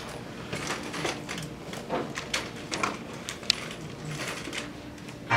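Scattered light clicks and knocks from the buttons of a portable PA speaker being pressed to start a karaoke backing track, over quiet room tone, with one sharper tick partway through.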